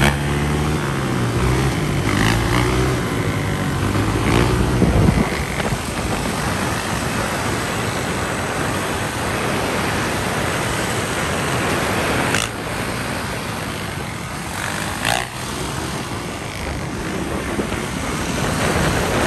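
Dirt bike engines running on the move, their pitched engine note clear for the first five seconds or so, then mostly buried in a steady rushing noise. There are two brief knocks, about twelve and fifteen seconds in.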